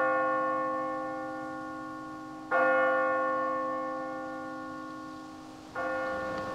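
A church bell tolling in slow single strokes about three seconds apart, each stroke ringing out and slowly fading.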